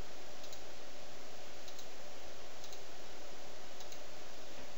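About five faint computer mouse-button clicks, each a quick double tick, over a steady hiss of background noise.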